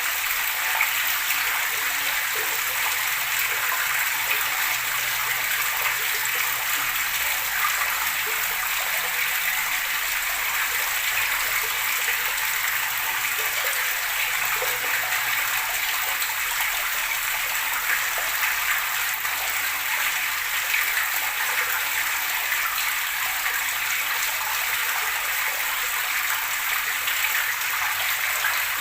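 Running water gurgling and splashing steadily, an even rush with no breaks.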